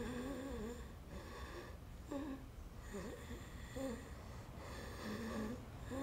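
A woman's soft, low voice in a few short wavering sounds with pauses between them, over a faint steady room hum.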